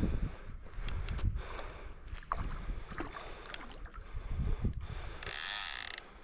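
Water splashing and swirling as a hooked fish, foul-hooked in the fin, thrashes at the surface, with wind rumbling on the microphone. Near the end comes a brief high buzz of under a second, the loudest sound here.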